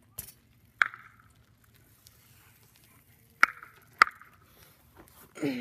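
Four sharp clicks close to the microphone, spread over the first four seconds, some with a brief ring. Near the end comes a short vocal sound that falls in pitch.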